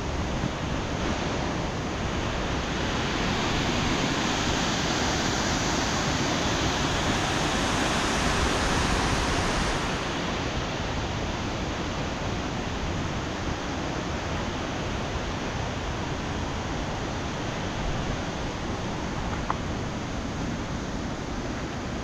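Steady rush of water from a rain-swollen beck and its waterfall. It swells for several seconds, then eases a little about ten seconds in.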